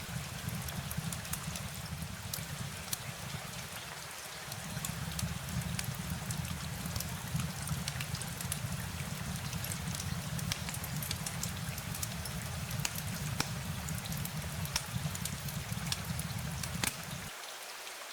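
Steady rain with many close drops ticking sharply, over a low rumble that dips about four seconds in and drops out briefly near the end.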